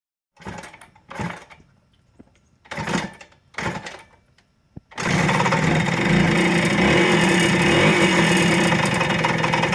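A few short noisy bursts and a click, then about five seconds in a Kawasaki engine starts running steadily at low revs. This is the low-RPM running in which the owner hears a knock that only happens sometimes.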